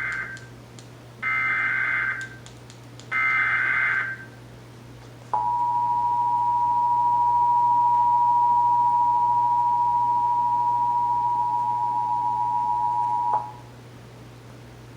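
Emergency Alert System SAME header: short bursts of buzzy, warbling digital data tones, about a second each, the first already under way. After a short gap comes the steady two-tone EAS attention signal, held for about eight seconds, which opens a Required Monthly Test.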